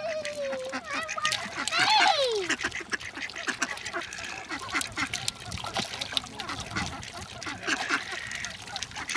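A flock of ducks quacking and calling over one another as they crowd in to be fed. About two seconds in there is one loud call that slides steeply down in pitch.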